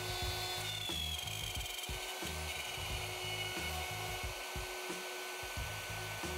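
Handheld plunge router running with a steady whine as its bit, guided by a bushing along a dovetail jig template, cuts into a board. The pitch drops about a second in as the bit bites into the wood, and shifts again partway through.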